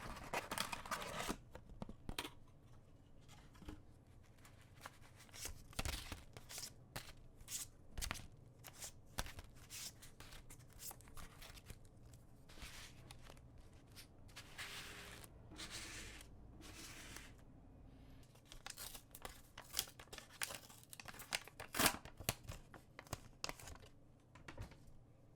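Plastic packaging of a trading-card booster box being torn and crinkled by hand, in irregular sharp crackles and rustles.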